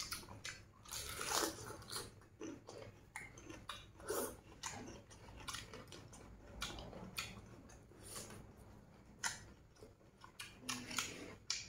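Two people chewing and biting into roasted duck: irregular short smacking and clicking mouth sounds.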